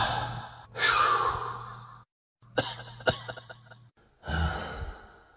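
A man's laboured, gasping breaths, four heavy breathy heaves about a second each. It is the struggle for air of someone choking from hydrogen sulfide poisoning.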